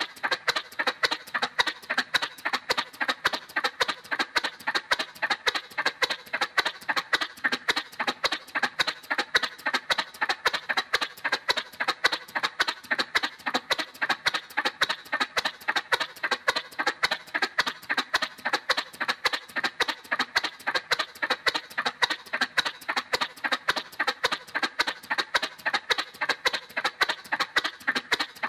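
Cartoon motorcycle sound effect: a steady, rhythmic putt-putt of sharp pulses, about three a second, repeating evenly without change.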